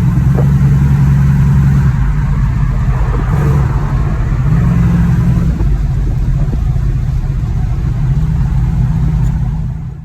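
Car engine running loudly, its pitch stepping up and down a few times as it is revved.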